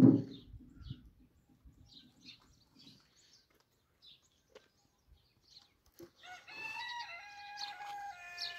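A rooster crowing once, a long held call of about two and a half seconds starting some six seconds in, with faint bird chirps before it. A brief loud noise right at the very start.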